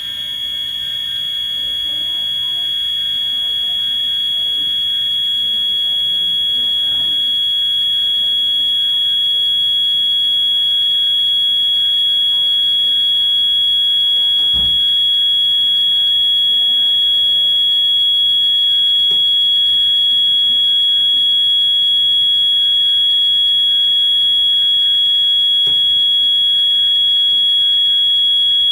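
EST (Edwards) fire alarm signals sounding a continuous, piercing high-pitched tone, growing a little louder over the first several seconds and then holding steady. Two faint knocks come through, near the middle and toward the end.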